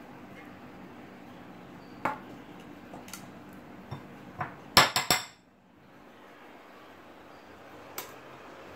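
Steel spoon clinking and scraping against a glass bowl while scooping thick hung curd, a few sharp clinks spread out with a quick cluster of the loudest ones about five seconds in. A low steady hum lies underneath.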